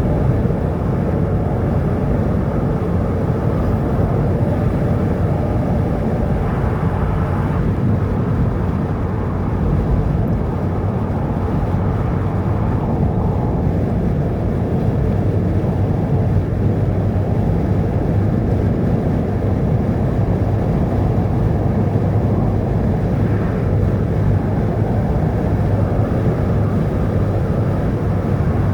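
Steady low rumble of a car driving along a road: engine and tyre noise with a constant low hum.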